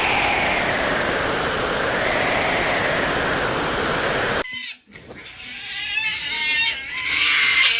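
Storm noise of wind and rain with a wavering, howling tone. It cuts off suddenly about four and a half seconds in, and a long drawn-out animal cry like a cat's meow or a goat's bleat follows, its pitch bending up and down and falling away at the end.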